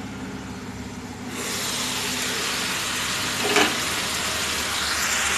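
Potato, cauliflower and green bean masala fry sizzling in a kadai over a low steady hum, the sizzle growing louder about a second in, with a short clink a little past halfway.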